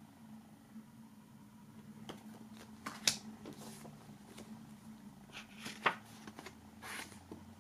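Paper booklets and card being handled on a wooden table: scattered rustles and light taps, the loudest about three seconds in and again near six seconds.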